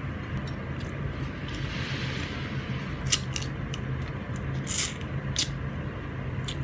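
Close-up eating sounds: a person eating prawns with her fingers, with a few short wet lip smacks and a breathy suck as she works the meat from the shells. A steady low hum runs underneath.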